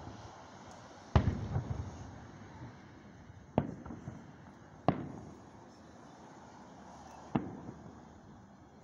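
Aerial fireworks shells bursting: four sharp booms, the first and loudest about a second in with a short run of crackles after it, then three more a second or more apart, each trailing off in echo.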